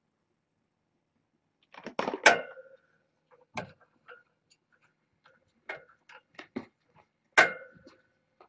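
A scattering of sharp clicks and knocks, two of them loud and about five seconds apart, each followed by a short ringing tone.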